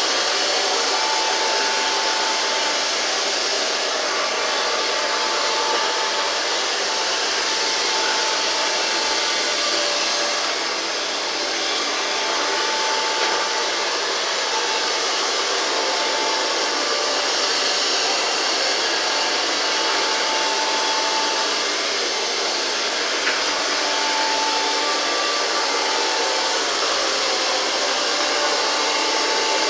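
Grundig VCR 2330 robot vacuum cleaner running steadily, its suction fan giving a constant rushing hiss, with a faint whine that comes and goes every few seconds.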